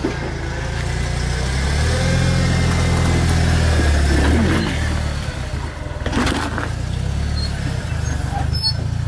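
Lifted Jeep's engine running at low revs as it crawls over rocks. The engine swells for a couple of seconds, then eases, and a brief knock comes about six seconds in.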